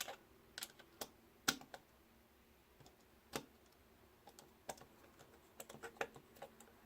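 Faint, scattered small clicks and taps of a small screwdriver, tiny screws and plastic parts being handled while working on a DJI Phantom 3 Pro camera gimbal, with two sharper clicks in the first half.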